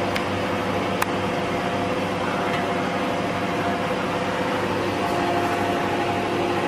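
Metal loaf tin being set onto the low wire rack of a preheated convection microwave oven: one sharp clink about a second in, over a steady fan hum.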